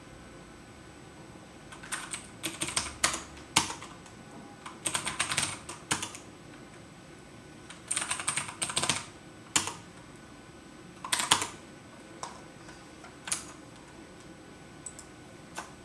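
Computer keyboard being typed on, starting about two seconds in: quick bursts of keystrokes separated by short pauses, then a few single key presses spaced out near the end.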